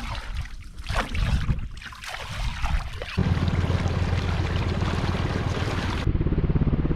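Scattered knocks and handling noise, then, about three seconds in, a helicopter's rotor comes in abruptly with a fast, steady low thudding as it hovers. It is drawing water up through a hose, which is thought to be pumping lake water into its tank.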